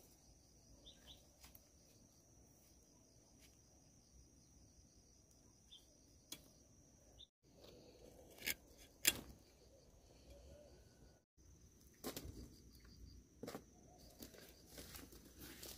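Faint outdoor background: a steady high-pitched insect drone with a few sharp clicks and knocks, the loudest about nine seconds in.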